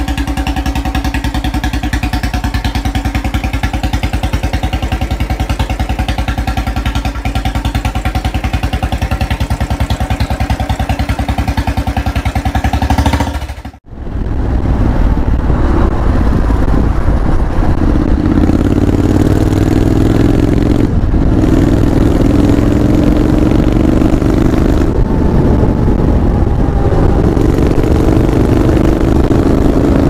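Royal Enfield Bullet 350's single-cylinder four-stroke engine idling steadily with fast even firing pulses. About 14 s in it cuts to a Triumph Bonneville's parallel-twin engine running, its pitch climbing slowly several times as it is revved.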